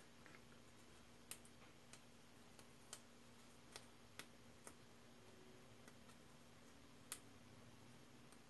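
Near silence broken by faint, irregular small clicks as fingers handle a washing machine's control-panel circuit board and press its tactile push buttons, the sharpest click about seven seconds in. A faint steady low hum runs underneath.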